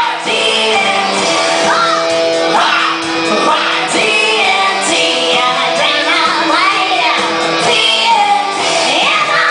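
Music: a song with sung vocals gliding in pitch over steady held chords.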